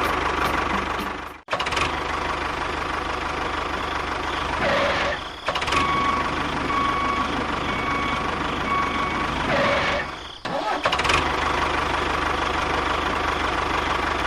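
Steady engine-like running noise from a miniature DIY construction vehicle, broken by three brief dropouts where the footage is cut, with a faint on-and-off whine in the middle.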